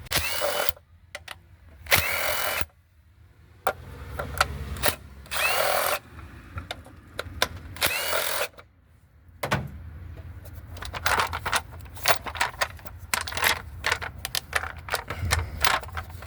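A power driver with a 10mm socket spins in four short bursts, each about a second long, backing out the engine cover bolts. Then comes a run of quick clicks and rattles, as of the socket and loosened bolts being handled.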